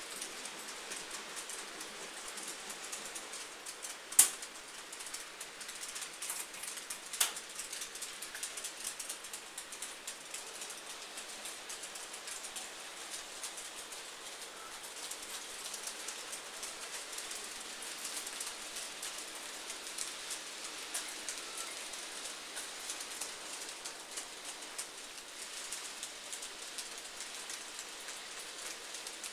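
N gauge model freight train running past: a steady fine crackly rattle of small wheels on the rails, full of little ticks over rail joints and pointwork. Two sharper clicks stand out about four and seven seconds in.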